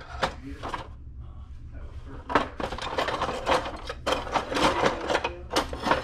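Knives and small metal odds and ends clinking and clattering in a box as a hand rummages through them, sparse at first and a busy rattle from about two seconds in.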